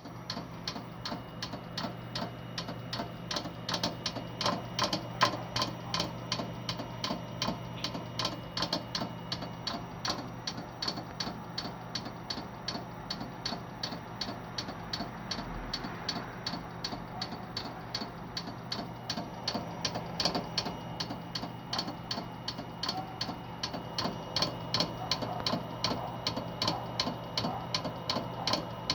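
Hard disk drive clicking over and over, about three clicks a second, over a steady low hum. The owner takes the noise for a fault in the drive.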